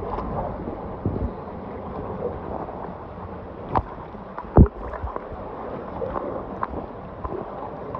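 Swimming water sloshing and gurgling close to a handheld phone's microphone in a turbulent gorge pool, with a few sharp thumps and splashes, the loudest about four and a half seconds in.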